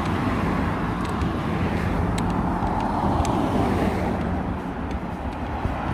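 Road traffic: cars driving past close by, a steady rush of tyre and engine noise.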